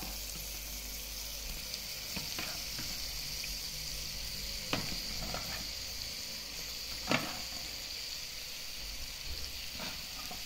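Pieces of boiled green fig frying in olive oil with onion and herbs, the pan sizzling steadily, with a couple of light knocks midway.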